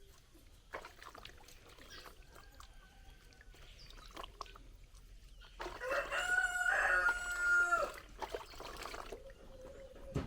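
Rooster crowing: one long, loud crow about six seconds in, after a fainter crow a few seconds earlier.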